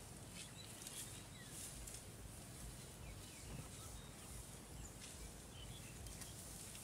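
Water buffalo grazing: faint tearing and crunching of dry grass as it crops, with a few faint bird chirps over a low steady rumble.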